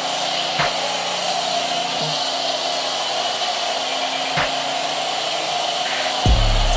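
Pressure-washer wand spraying wash chemical onto a truck's body and frame, a steady, even hiss of the spray.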